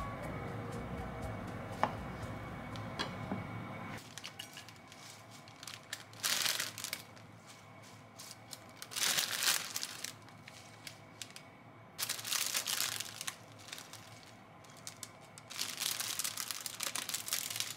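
Baby-leaf salad greens rustling and crinkling as they are handled and laid on a plate, in about four separate bursts a few seconds apart.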